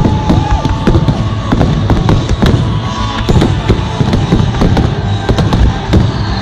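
A fireworks display in a rapid, continuous barrage of bangs and crackles. A few short whistles rise and fall at the start.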